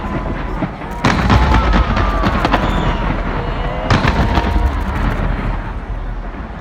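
Large fireworks display: two heavy bursts of shells, about a second in and about four seconds in, over continuous crackling and popping.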